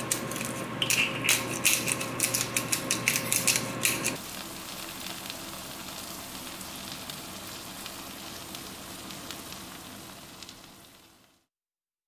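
Food frying in a hot pan: about four seconds of loud, dense crackling and spitting, then a steadier, quieter sizzle of Japanese stir-fried noodles that fades out near the end.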